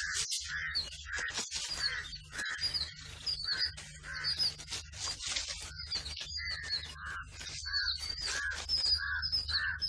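Birds chirping, short calls repeating about twice a second, each with a lower note and higher chirps, over a steady low hum.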